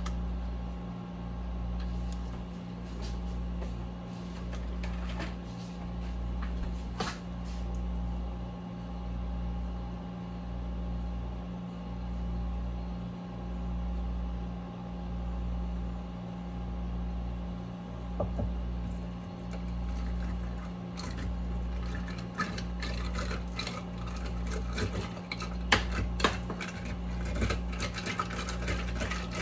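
A steady low appliance hum that swells and fades about once every second and a quarter, with light clicks and clinks of kitchenware in the last several seconds.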